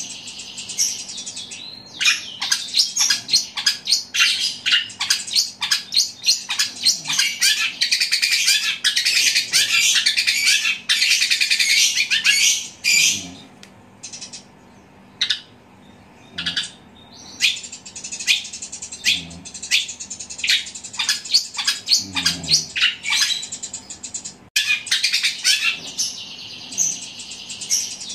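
Long-tailed shrike (cendet) singing loud, very fast chattering phrases that mimic the calls of fighting Eurasian tree sparrows. The song comes in long rapid runs, with a gap of a few seconds around the middle.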